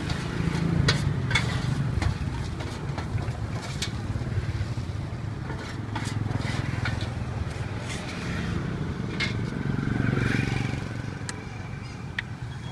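A metal spatula scraping and clicking against a large steel wok, over a steady low rumble of passing traffic that swells about a second in and again around ten seconds.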